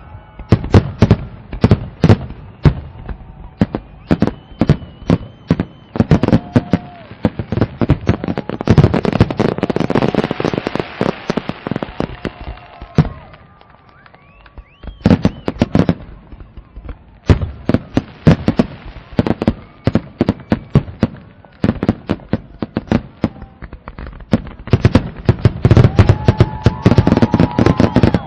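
Fireworks going off in a rapid series of sharp bangs and crackles. Dense barrages come around ten seconds in and again near the end, and a short lull just after the first is broken by a rising whistle.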